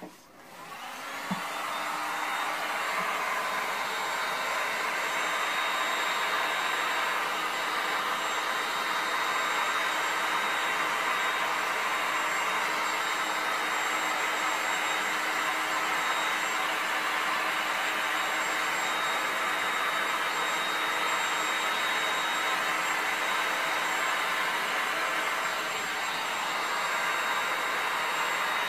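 Electric heat gun switched on and blowing steadily over wet epoxy resin, its fan and air noise building up over the first couple of seconds and then holding level, with a faint steady whine.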